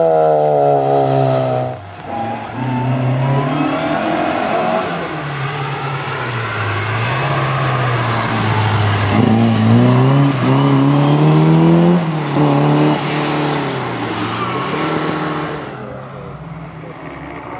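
Historic rally car's engine revving hard on a special stage, its pitch falling to a break about two seconds in, then climbing and dropping again with each gear change and lift as the car passes, and fading near the end.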